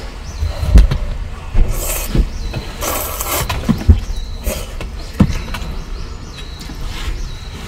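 Handling noise while eating: several dull knocks and a few short rustling bursts.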